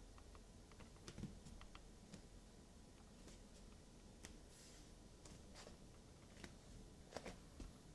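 Near silence: room tone with faint, irregular clicks and taps, a few about a second in and a small cluster near the end.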